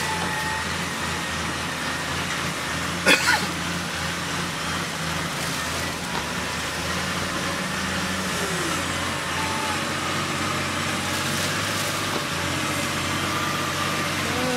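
Off-road vehicle engine running steadily at a constant low speed, with one sharp knock about three seconds in.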